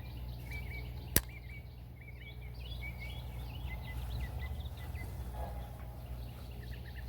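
Birds chirping repeatedly in short calls, with one sharp click about a second in.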